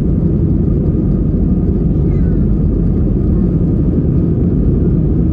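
Steady low rumble of an Airbus A320's engines and rushing air, heard inside the cabin.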